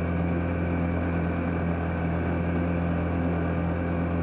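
Boat's outboard motor running steadily at trolling speed, a constant low drone that does not change.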